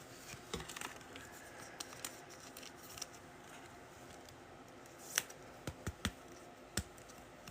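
Trading cards and their packs being handled: faint rustling with scattered sharp clicks and snaps, the loudest about five seconds in and a few more close together around six seconds.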